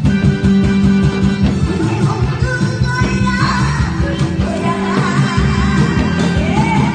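Upbeat music with a fast, steady beat, and a singing voice coming in about two seconds in.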